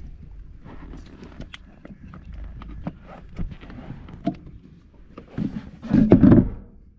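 Car battery being lowered into its floor compartment: scattered clicks and knocks of the battery case against the plastic well, with a louder run of thumps near the end as it settles into place.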